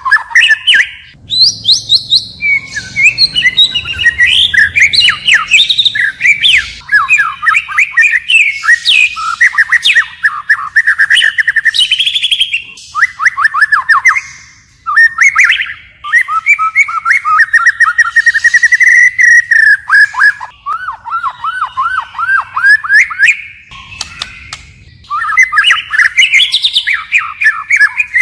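White-rumped shama singing a long, loud song of rapid trills and fast repeated whistled notes, switching from one phrase to the next continuously, with brief pauses between phrases about halfway through and near the end.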